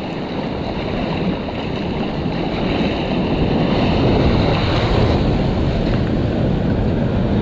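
Whitewater rapids rushing and churning around a kayak, heard from right at the water with spray and splashes hitting the microphone. The rush grows a little louder about halfway through.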